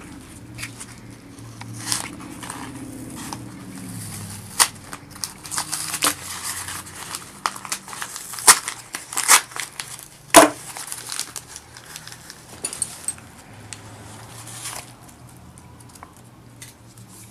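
Shift-knob package being opened by hand: packaging crinkling and rustling, with many sharp clicks and snaps, the busiest and loudest stretch in the middle.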